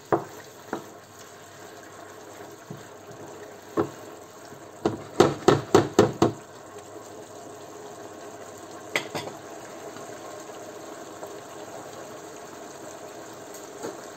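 Sofrito with meat and mushrooms sizzling in a frying pan on high heat as its white wine reduces, while a wooden spatula stirs and knocks against the pan. There is a quick run of about six knocks around five to six seconds in, and a few single knocks elsewhere.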